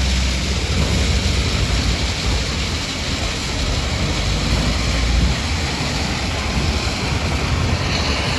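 Heavy machinery running at a worksite: a loud, steady noisy rumble with a deep low end that drops away about five seconds in.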